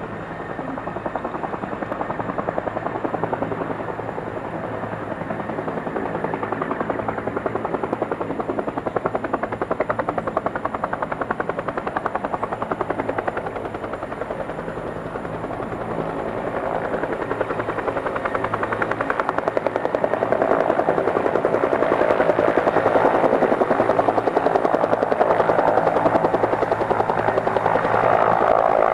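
Bell 212 helicopter with its two-bladed main rotor beating rapidly over the steady whine of its twin turbine engines, growing louder about two-thirds of the way through.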